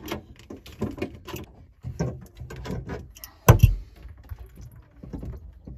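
Small clicks and rattles of metal plumbing fittings and braided supply hoses being handled and unscrewed at under-sink shutoff valves, with one louder knock about three and a half seconds in.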